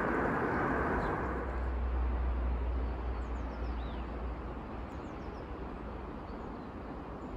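Outdoor ambience: a steady rushing noise that slowly fades, a low rumble of wind on the microphone for a few seconds, and a few faint bird chirps near the middle.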